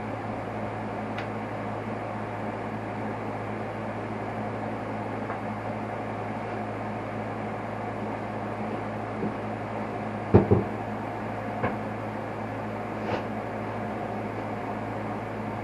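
Tools and parts knocking and clicking now and then during work on a motorcycle's front fork, the loudest a quick double knock about ten seconds in, over a steady low hum.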